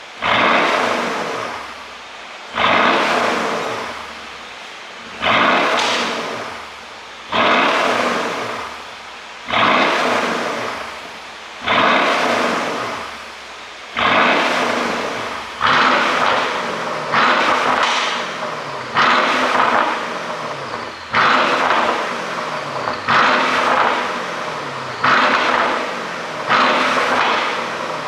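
Mercedes-AMG S63's 5.5-litre twin-turbo V8 blipped over and over, a sharp rev about every two seconds, each one falling back. In the later revs, pops and crackles come out of the exhaust as the revs drop, the sign of an ECU pop-and-crackle tune.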